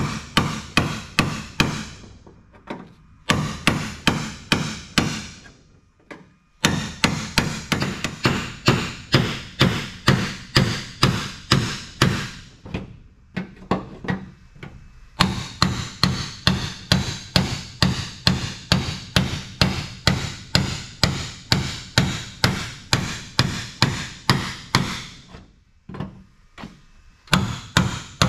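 Hammer striking a cold chisel to cut through a car's rusty steel quarter panel and its spot welds. Sharp, ringing metal blows come about three a second in runs, with a few short pauses between them.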